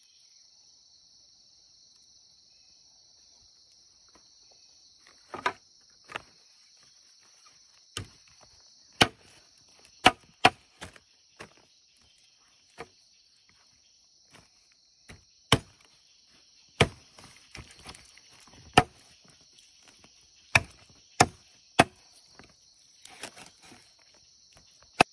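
Knife chopping on a banana leaf over the ground, about fifteen sharp strikes at irregular spacing starting about five seconds in, over a steady high-pitched insect drone.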